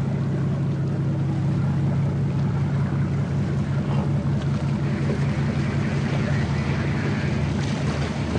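Motorboat engine running with a steady low hum.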